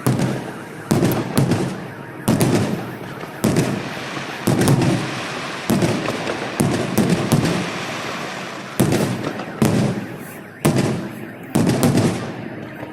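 Fireworks display: aerial shells bursting about once a second, each sharp bang trailing off into crackle and rumble.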